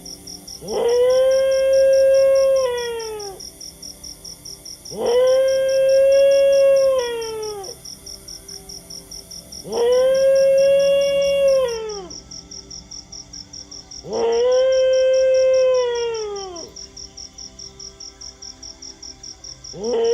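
A dog howling: four long howls about four and a half seconds apart, each rising, holding for a couple of seconds, then falling away, with a fifth starting at the end. A steady, fast, high chirping, like a cricket, runs behind.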